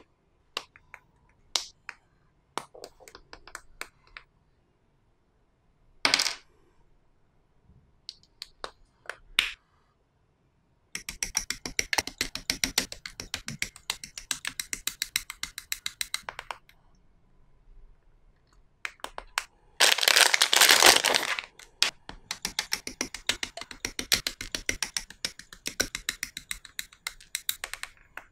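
Small plastic model kit parts being handled and snapped together: scattered sharp clicks and snaps, then, from about a third of the way in, long stretches of rapid plastic clattering, loudest for about two seconds a little past the middle.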